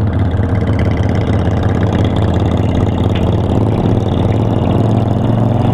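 V-twin cruiser motorcycle engine running steadily at road speed, heard from the rider's seat with wind noise over it.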